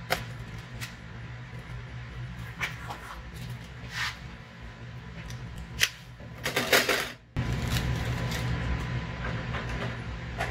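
Unpacking and handling sounds: scattered light clicks and knocks of plastic parts and packaging being handled, with a louder rustling scrape about six and a half seconds in.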